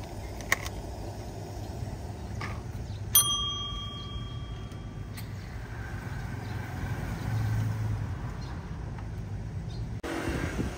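A counter service bell struck once about three seconds in, ringing clearly and fading over about two seconds. A steady low rumble runs underneath, with a couple of small plastic clicks near the start.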